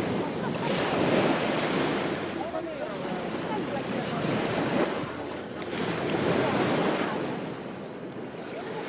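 Ocean surf on a beach: waves breaking and washing up the shore in a continuous rush of noise. It swells louder twice, about a second in and again past the middle, and falls back in between.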